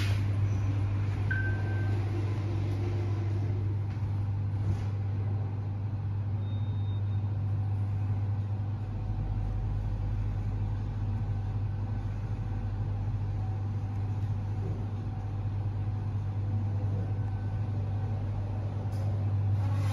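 Steady hum and rumble inside a refurbished 1994 Mitsubishi passenger lift car as it travels upward, with a deeper rumble for a few seconds mid-ride.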